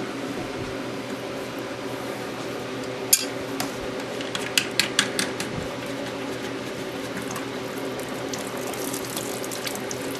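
Water from a toilet tank running and spilling out at the loosened connection under a leaking fill valve, a steady trickle, with a few sharp clicks of pliers on the fitting about three seconds in and again around five seconds in.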